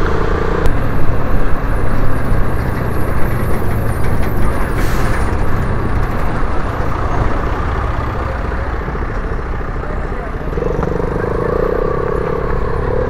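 A Yamaha motorcycle riding in traffic, heard from the rider's own camera: engine and tyre noise under a steady rush of wind over the microphone. A short hiss comes about five seconds in, and a steady hum sets in near the end.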